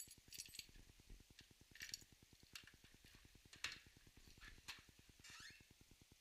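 Near silence with faint clicks and clinks of small parts being handled, and a sharper click about two-thirds of the way in as the VW Beetle's door latch is opened.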